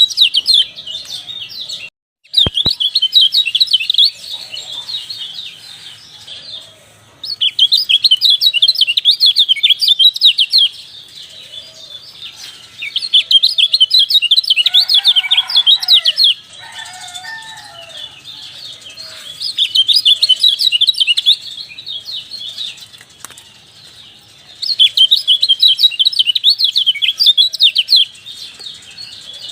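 Kecial (white-eye) song used as a lure recording: bouts of fast, high chirping, each a few seconds long, with short quieter pauses between them, five bouts in all. About halfway through, some lower calls sound alongside the chirping.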